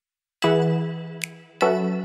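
Background music: struck notes that ring and fade, the first coming in about half a second in and the next about a second later.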